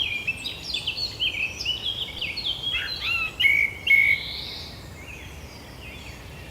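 Forest birds singing: a busy run of quick chirps and short rising notes, thinning out after about four and a half seconds to a few faint calls over steady background hiss.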